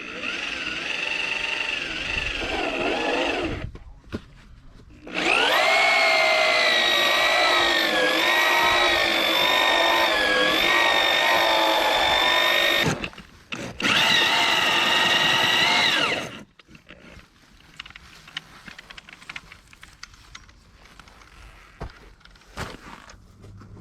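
A handheld power tool's electric motor runs in three bursts, the longest about seven seconds, its pitch sagging and recovering under load. Light knocks and handling noise follow.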